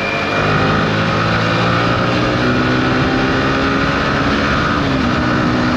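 Motorcycle engine running at road speed with steady wind rush, heard through a helmet-mounted camera mic.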